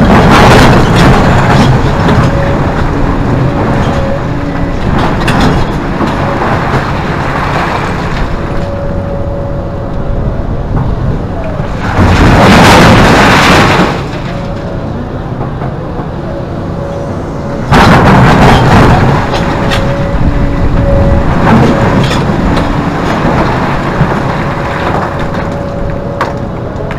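Hidromek 390 excavator at work: its Isuzu six-cylinder diesel runs steadily with a constant tone under everything. The steel bucket crunches into broken rock at the start and again past the middle, and around halfway a bucketful of rock crashes down into a dump truck's bed.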